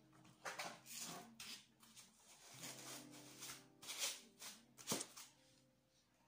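Foam packing corners handled around a laptop: a series of short, soft rubbing and scraping noises as the foam and the laptop shift against each other and the table, the sharpest about five seconds in.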